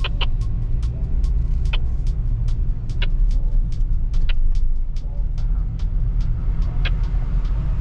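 Jeep Wrangler Rubicon driving slowly on an off-road trail: a steady low engine and drivetrain rumble with many short clicks and knocks over it.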